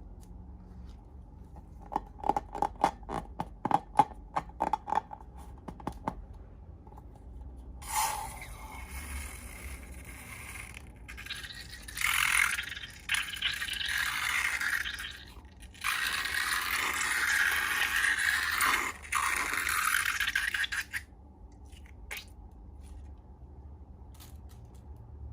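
Slime being worked by hand: a quick run of sticky clicks and pops, then a long stretch of scraping and squelching, broken by short pauses, that stops suddenly near the end.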